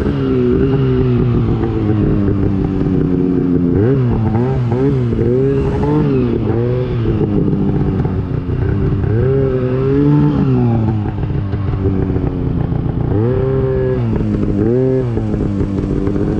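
Two-stroke mountain snowmobile engine running hard through deep powder. The revs climb and drop again and again as the throttle is worked on and off.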